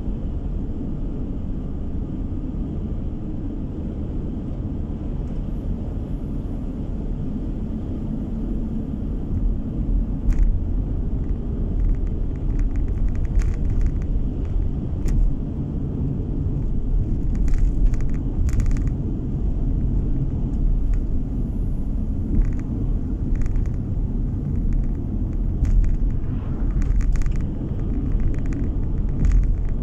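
Car driving on a country road, heard from inside the cabin: a steady low rumble of engine and tyre noise, broken by scattered short knocks and rattles as the car rolls over a cracked, patched road surface.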